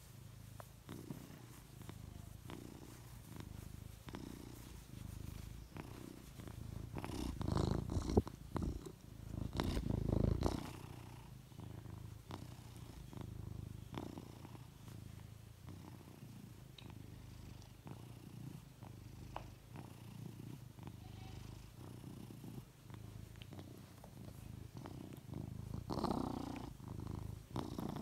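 A tabby cat purring steadily in a low rumble, content while being scratched under the chin. The sound grows louder for a few seconds around eight and ten seconds in, and again near the end.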